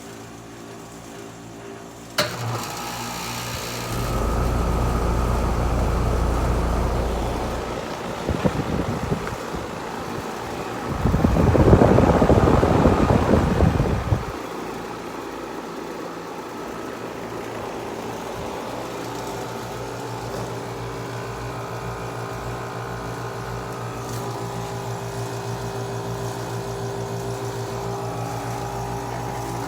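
2006 Rheem Classic central air conditioner starting up: a sharp click about two seconds in as it kicks on, then the compressor and condenser fan settle into a steady running hum. Two stretches of loud low rumbling break in, about four and eleven seconds in.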